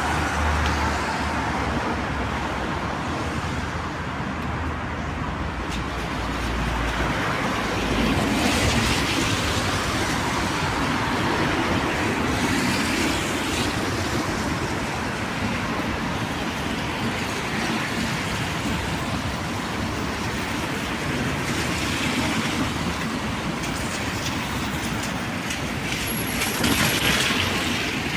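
Traffic on a wet city street: a steady hiss of tyres and rain, swelling as vehicles pass about eight seconds in and again near the end.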